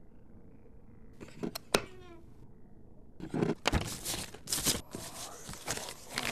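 A faint hum, then a sharp click with a short falling squeak about a second and a half in. From about three seconds in, loose sheets of paper rustle and flap in irregular bursts.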